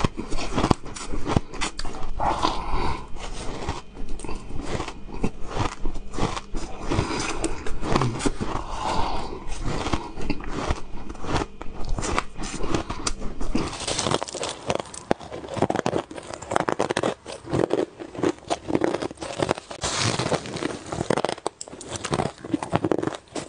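Crushed ice being bitten and chewed: dense, crisp crunching and crackling in quick irregular strokes. A low background hum under it stops about halfway through.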